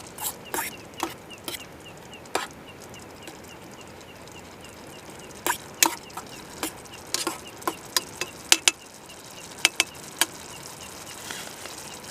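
Irregular sharp clicks and knocks, some in quick pairs, over a faint steady chirping that repeats about three times a second.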